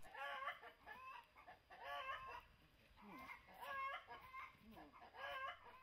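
Chickens clucking faintly, a short run of clucks about every second and a half.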